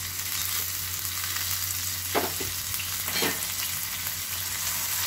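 Chopped onion, tomato and curry leaves sizzling steadily in hot oil in a frying pan, a tadka on a high gas flame. Two brief louder sounds come about two and three seconds in.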